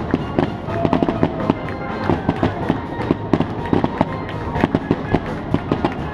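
A fireworks display going off: a dense run of bangs and crackles in quick succession, several a second.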